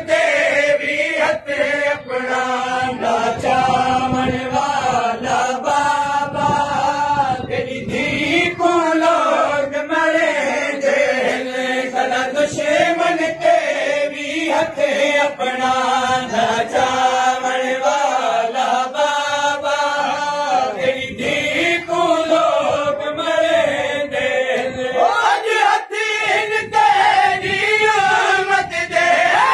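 Men's voices chanting a noha, a Shia lament, as one continuous melodic line, with a steady rhythm of chest-beating slaps (matam) running under it.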